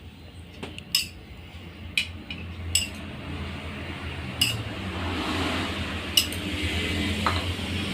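A serving spoon clinking against plates as food is dished out: about five sharp, separate clinks. Under them runs a steady low hum, and a hiss builds up in the second half.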